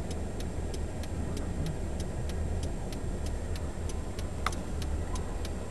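Car turn-signal indicator clicking steadily at about three clicks a second, with one sharper tick about four and a half seconds in, over the low hum of the engine heard from inside the cabin.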